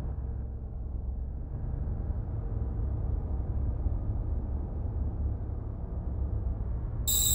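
A steady low rumble with no clear pattern. Right at the end a shrill whine of several steady high tones cuts in suddenly.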